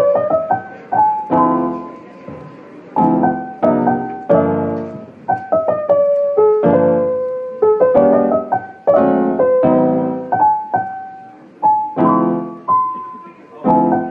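Background music: a gentle solo piano instrumental, with chords struck about once a second, each fading away, and a simple melody above them.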